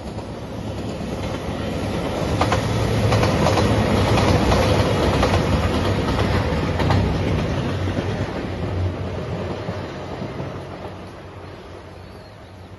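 JR Shikoku 2700 series diesel express train passing: the engines' hum and the rumble of the wheels swell to their loudest in the middle, with rapid clicks as the wheels cross rail joints, then fade away.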